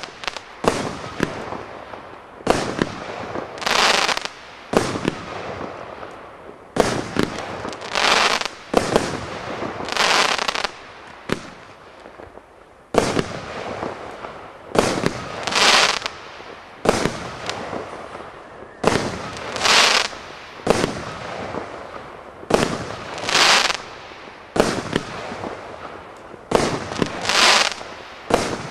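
81-shot compound firework battery (cake) firing shot after shot: a sharp bang every one to two seconds, many followed by about half a second of hissing crackle.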